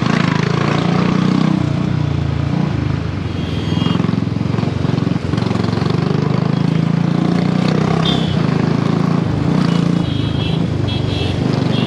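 Royal Enfield Bullet 350's single-cylinder engine running at low speed, its exhaust beat steady with small rises and falls of throttle. Short high-pitched beeps come in a few times, mostly near the end.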